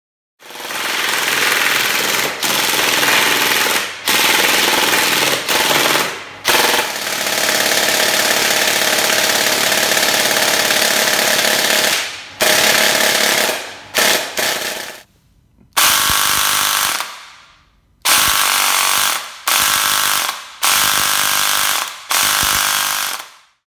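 Airsoft electric gun gearbox firing on full auto: a fast, even mechanical rattle of gears and piston cycling, in long bursts of several seconds with brief breaks, then shorter bursts of a second or two that each trail off. The last bursts come from a bare gearbox fitted with a dual-sector gear.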